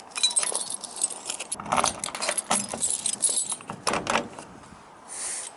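A bunch of keys on a keyring jangling while a key is worked in the lock of a steel compartment door on an electric utility cart, with irregular metallic clicks and rattles from the key and lock.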